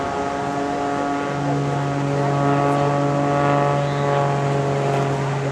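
Engine of a propeller aerobatic plane droning steadily overhead as it manoeuvres, its pitch stepping up slightly about a second in.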